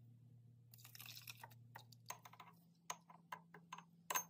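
Granulated sugar poured from a plastic scoop into a stainless-steel mixer bowl, a brief grainy rustle about a second in. It is followed by a run of sharp ticks and taps of the scoop and ingredients against the bowl, the loudest near the end.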